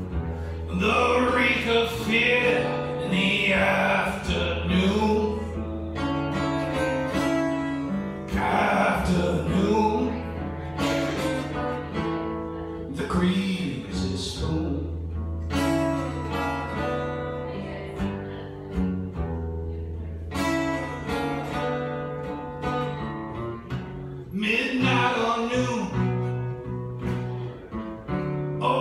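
A man singing a song live and accompanying himself on a strummed acoustic guitar.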